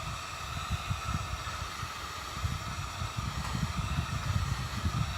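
Heat gun running, a steady blowing hiss with a faint tone in it over an uneven low rumble, warming the adhesive strip on a replacement reflector.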